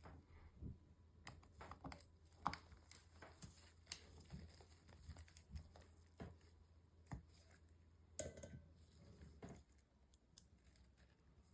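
Faint, scattered small clicks and taps of tools and parts being handled on an opened MacBook Pro during a battery swap, over a low steady hum.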